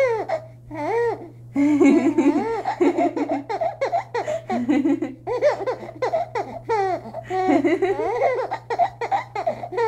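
A baby laughing hard, in repeated peals of giggles and belly laughs.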